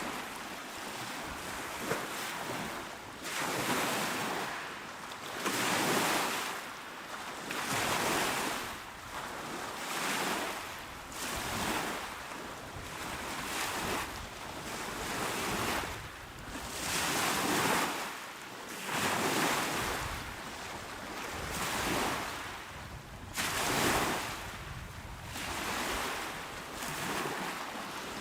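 Small, calm waves washing onto a shore, the water surging up and falling back about every two seconds in an even rhythm.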